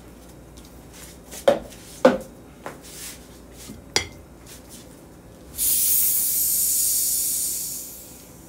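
Serving utensil clinking and scraping against a frying pan and plates as potatoes with chorizo are served, three sharp clinks in the first half. Then a loud steady hiss for about two and a half seconds that fades out near the end.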